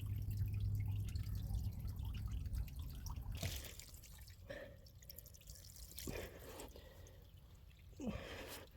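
Waste water dripping and trickling out of a backed-up sewer line, with a few knocks. The backup is likely fed by a washing machine left running.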